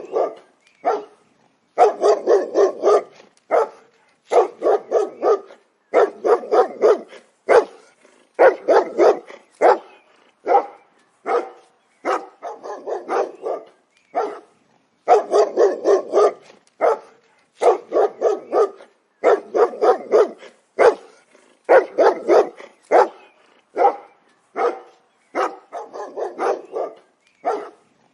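Dog barking in quick runs of several loud barks, each run a second or two long, with short silent gaps between the runs.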